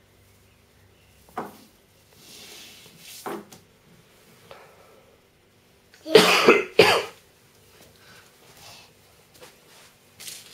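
A person coughing: two loud coughs about six seconds in, after a couple of shorter, fainter ones.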